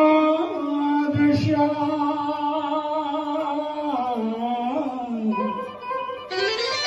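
Tamil qawwali: a male voice sung through a microphone, holding a long note that then slides and steps downward, over electronic keyboard accompaniment. A single low thump about a second in, and a bright keyboard tone comes in near the end.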